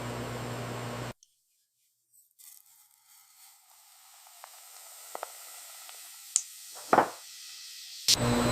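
Steady machinery hum that cuts off abruptly about a second in, then a faint hiss with a few sharp clicks, before the loud hum cuts back in near the end.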